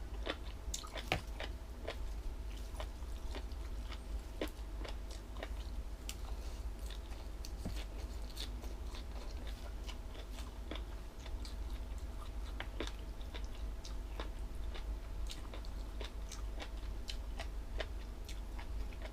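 A person chewing crunchy food close to the microphone: a steady run of irregular crisp crunches and wet clicks.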